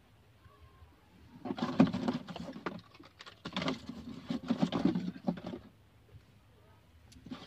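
Rubbing and handling noise from wiping a car's plastic dashboard by hand, in two spells of a second or two each, with a faint pause between them.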